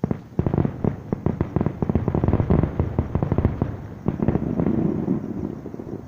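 Fireworks display: a rapid barrage of booms and cracks, several per second, starting abruptly and thinning out near the end.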